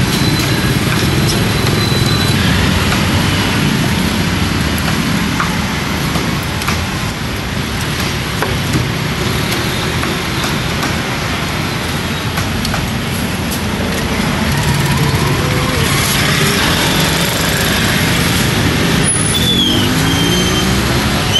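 Steady road traffic running past, with occasional light knocks and a few short high squeals near the end.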